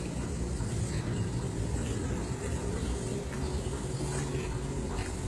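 Street traffic: a steady low rumble of cars.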